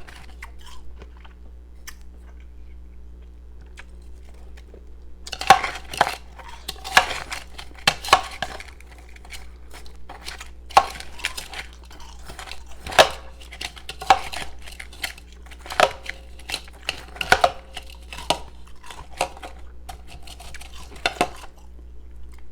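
Ice pieces clinking against a dish and crunching. It is quiet at first; from about five seconds in comes a run of sharp, irregular clicks and crunches, over a faint steady low hum.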